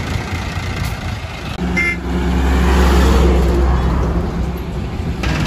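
Highway traffic: a heavy truck's engine rumble swells as it passes close, loudest around the middle, with a short high tone about two seconds in.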